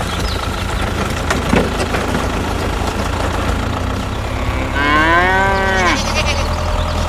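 A cow moos once, a single call of about a second rising and falling in pitch, about five seconds in, over a steady low hum.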